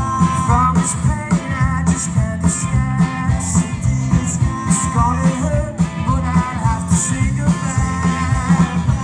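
Live rock band playing: electric guitar, bass and drums with a steady beat.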